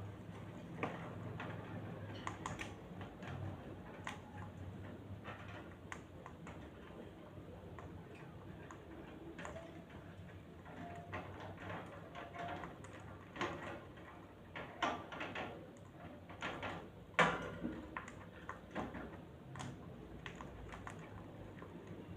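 Small pet parrots pecking and clicking: irregular sharp taps and ticks, denser and louder in the second half.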